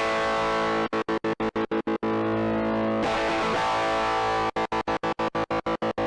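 Overdriven electric guitar (Fender Stratocaster) holding a distorted chord. Twice it is chopped on and off rapidly, about eight cuts a second, by a momentary hard-gate tremolo/kill-switch pedal (Djenter's Little Helper), with the chord ringing on in between.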